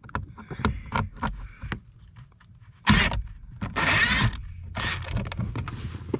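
Handling noise under a car's dashboard: a few light clicks, then three short bouts of scraping and rustling against hard plastic, the loudest about four seconds in.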